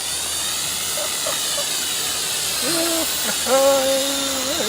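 Syma X5 toy quadcopter in flight, its four small motors and propellers making a steady hissing buzz whose tone sweeps as it moves about.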